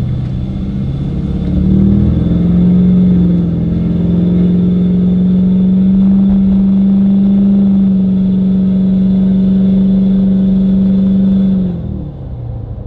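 Duramax turbodiesel V8 pulling hard through a 7-inch cat-style exhaust stack, heard from inside the truck's cab. Its note climbs in pitch over the first couple of seconds, holds steady under throttle, then falls away near the end as the throttle is lifted.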